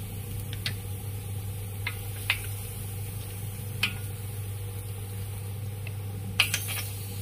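Clam shells clicking as they are set down one at a time on a stone-coated pan, five short sharp clicks over a steady low hum, the loudest near the end.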